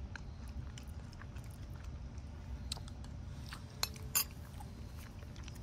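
A metal spoon in a ceramic bowl of food, with two short sharp clinks a little under four seconds in and faint small ticks between, over a low steady rumble.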